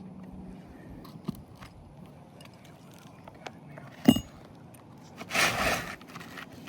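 Roofing hand tools working asphalt shingles: light ticks and taps, one sharp metallic clink about four seconds in, then a short scrape about a second later.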